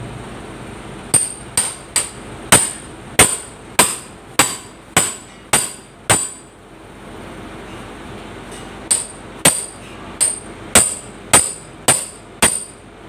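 Hammer blows on the steel body panel of a bus beside the wheel arch, each a sharp ringing metallic strike, as the fender is worked loose. About ten blows come at a steady pace of roughly one every 0.6 s, then after a pause of nearly three seconds seven more follow.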